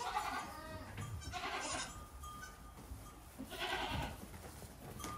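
Goat kids bleating three times, with faint knocks of their hooves on the barn floor as they run and hop.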